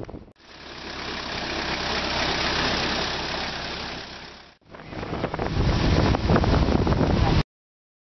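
A vehicle engine running, heard in two separate stretches: the first fades in and out, and the second is louder. It cuts to silence about seven and a half seconds in.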